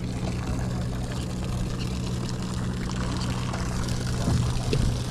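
Steady hum of a sportfishing boat's engine, with a few short knocks near the end.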